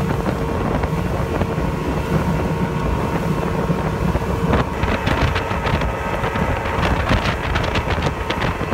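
Center-console boat running on plane under a Yamaha 300 HPDI two-stroke V6 outboard, with heavy wind buffeting on the microphone and water rushing past the hull. From about halfway through come sharper hits over the steady rumble.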